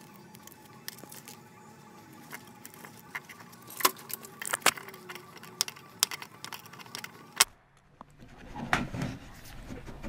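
Metal clinks and scraping of an adjustable wrench and brass pipe fittings being handled and tightened onto a pressure switch's threaded port, with a few sharp clinks spread through. After a sudden break about 7.5 s in, softer rubbing and handling sounds.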